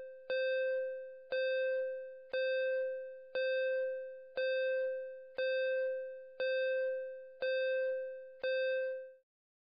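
Countdown timer sound effect: a single bell-like ding struck about once a second, each fading away before the next, nine times in a row, stopping a little after nine seconds in.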